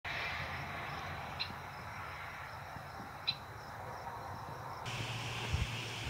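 Rural outdoor ambience: a steady high insect drone, like crickets, over a soft background hiss, with two short high chirps. Near the end the sound changes abruptly and a low rumble comes in.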